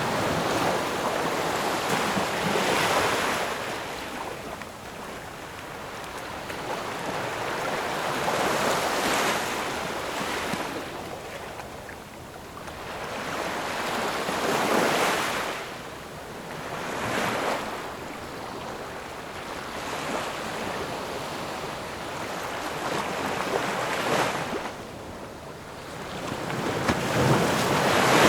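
Ocean waves breaking and washing ashore, each wave rising to a hiss and falling away, about every five or six seconds, with the loudest one near the end.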